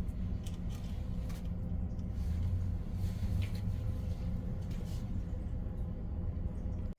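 Steady low mechanical hum with a thin, constant higher tone, and a few faint clicks about half a second, a second and a half, three and a half and five seconds in. The hum cuts off suddenly near the end.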